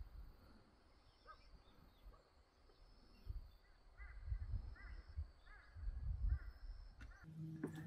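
A bird calling in the background: a string of short, arched chirping notes about every half second to second. Bouts of low rumble come and go, and a steady low hum starts near the end.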